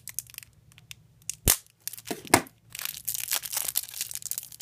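Packaging being torn open and crinkled by hand, with two sharp knocks, about a second and a half in and just after two seconds, then steady crackling.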